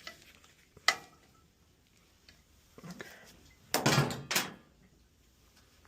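Metal parts and tools being handled: a sharp click about a second in, then a short clatter a few seconds later.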